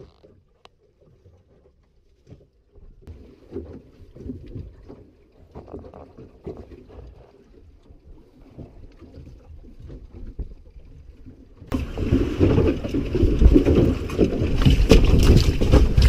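Faint, muffled, irregular thumps of a landed tope shark moving against the deck of a small boat. About twelve seconds in, the sound jumps abruptly to loud wind buffeting the microphone, with knocking still in it.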